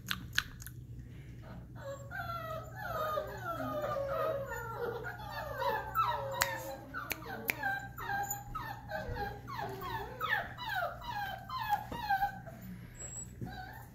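Pit bull puppy whining and whimpering: a rapid run of short, high cries, each falling in pitch, starting about two seconds in and tapering off near the end, over a steady low hum.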